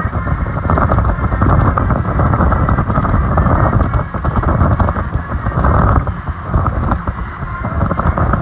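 Speedboat running fast over open sea: engine noise mixed with heavy wind buffeting the microphone, a loud rough rumble that swells and dips.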